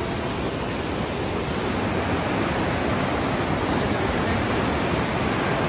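Fast, silt-laden mountain river rushing over boulders: a loud, steady wash of water noise that grows slightly louder about two seconds in.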